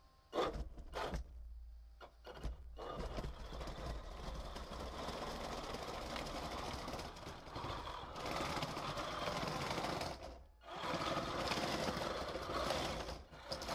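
3D-printed RC tank driving: its two brushed DC motors running through printed gearboxes and chain drives, with the printed track links rattling. A few short bursts at first, then steady running, cut off briefly about ten seconds in before it starts again.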